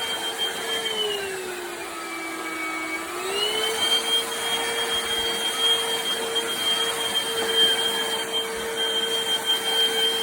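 Black+Decker POWERSERIES+ 20V MAX cordless stick vacuum running with a steady motor whine. About a second in, the pitch sinks, then climbs back to its running pitch a couple of seconds later and holds there.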